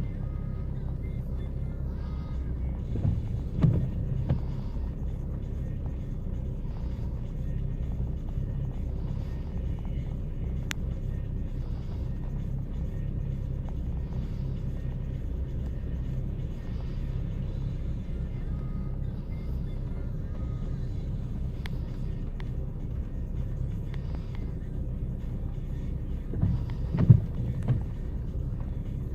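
2012 Chevy Cruze LS's 1.8-litre four-cylinder engine idling roughly, a steady, uneven low rumble. Two brief louder bumps come a few seconds in and again near the end. The rough idle is a fault the mechanics have not been able to diagnose.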